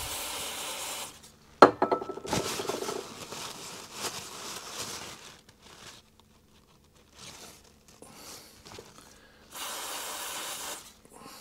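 Aerosol cleaner sprayed through a straw nozzle onto a small carburettor mixture screw: one short hiss of about a second at the start and another near the end. In between, a sharp click about one and a half seconds in and paper towel rubbing as the screw is wiped.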